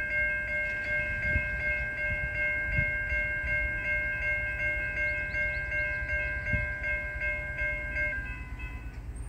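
Railroad crossing bell ringing in quick, evenly repeated dings, which stop about eight seconds in, over a low rumble.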